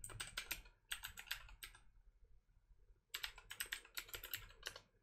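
Computer keyboard typing: two quick runs of keystrokes separated by a pause of about a second and a half.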